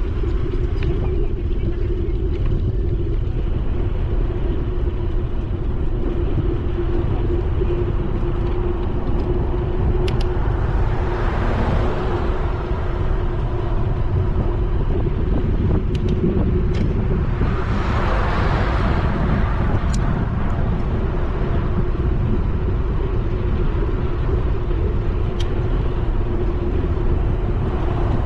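Steady low rumble of wind and road noise from a bicycle rolling on asphalt, with a constant hum underneath. Twice, about a third and about two thirds of the way through, a passing car swells up and fades away.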